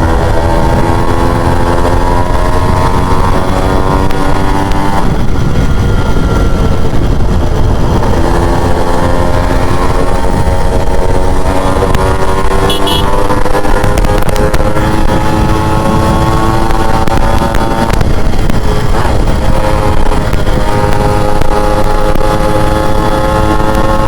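Yamaha RX100's two-stroke single-cylinder engine running while riding, over a steady low rush. Its note breaks off briefly about five seconds in and again near eighteen seconds, each time then rising slowly in pitch as the bike picks up speed.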